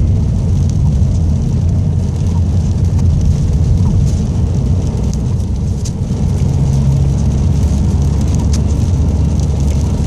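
Vehicle travelling along the road: a steady, loud low rumble of engine, tyre and wind noise.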